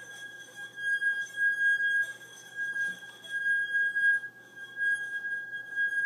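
A steady, unwavering high-pitched ringing tone with overtones, held without a break.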